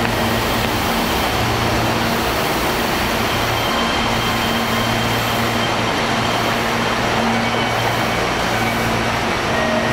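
Steady mechanical rumble with a low, even hum.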